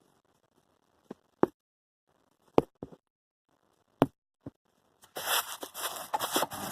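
Hand tools and small metal parts being handled: six sharp clicks and knocks spread over the first four and a half seconds, then steady scraping and rustling from about five seconds in.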